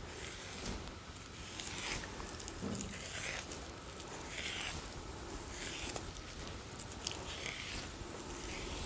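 Partly retted flax stems being scraped by hand with the thumb and fingernail to strip the broken woody shives off the fiber (hand scutching): a run of faint, irregular scratching strokes, with one sharp click about seven seconds in.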